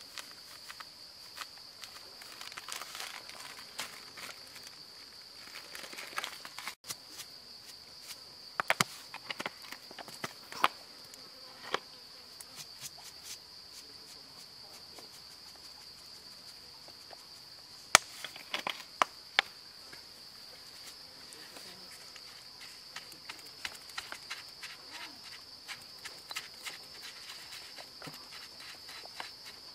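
Steady high-pitched insect drone, with scattered sharp clicks and taps, the loudest about 18 seconds in. In the last few seconds a stone pestle in a stone mortar adds quick light ticks.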